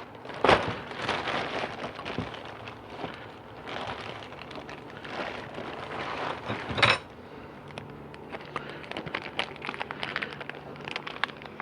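Small hard parts clinking and knocking and rustling being handled at a workbench while seals and O-rings for a transmission rebuild are sorted. A sharp knock comes about half a second in and a louder clatter near seven seconds, followed by many light clicks.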